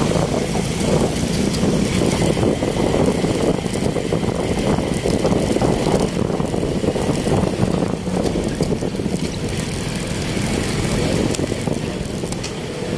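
Steady street traffic noise: a dense mix of vehicle engines and tyres running on the road.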